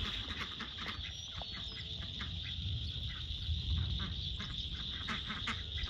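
A flock of ducks calling in many short notes, over a steady high-pitched insect chorus, with a low rumble of wind on the microphone.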